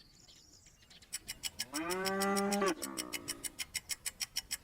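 A cow mooing once, a call about a second long. Under it runs a rapid even ticking, about six ticks a second.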